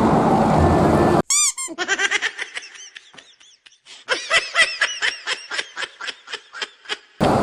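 Baby laughter sound effect: a long run of quick giggles cut in abruptly about a second in, with road traffic noise before it and again at the very end.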